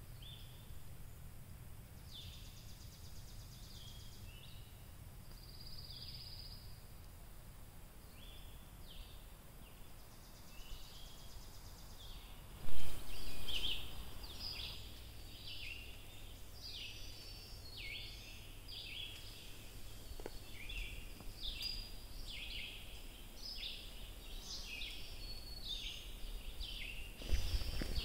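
Forest birds calling in short down-slurred notes, scattered at first, then coming thick and fast at about two a second in the second half. About halfway through, a sudden loud knock is followed by about two seconds of noise, and another short burst of noise comes near the end.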